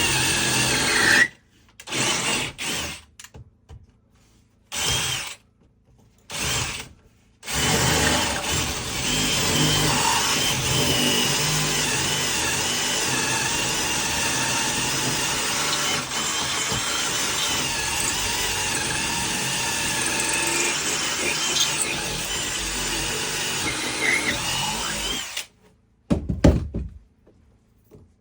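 Electric drill running in several short bursts, then one long continuous run of about eighteen seconds with a steady motor whine, and a last short burst near the end.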